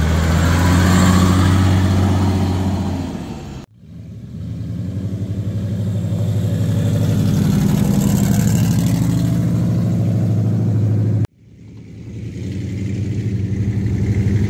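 An off-road 4x4's engine running at low, fairly steady revs as it drives the trail. The sound cuts off abruptly twice, about four and eleven seconds in, and each time rises back up within a second or two.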